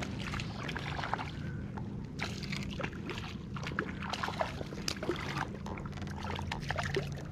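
A small hooked fish splashing repeatedly at the water's surface beside a float tube as it is reeled in, with water sloshing.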